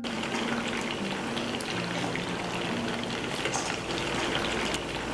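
Steady hiss from a nonstick frying pan on a lit gas burner as a ladle of cooking oil is poured in and starts to heat.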